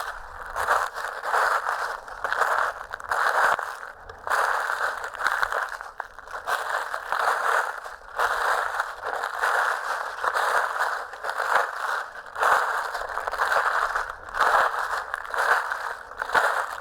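Footsteps crunching through dry fallen leaves, one crackling step after another at a walking pace.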